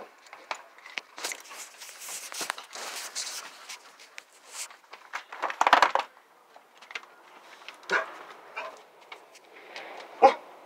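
A dog barking in a few short, separate barks, the loudest about six seconds in, with rustling and crackling noise in between.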